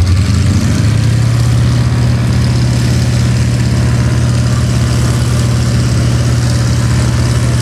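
Aerobatic plane's radial engine idling on the ground as the plane taxis, a steady low drone with an even pitch.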